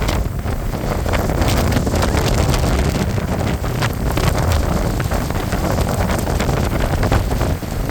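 Strong mountain wind buffeting the microphone: a loud, continuous rush with a heavy low rumble.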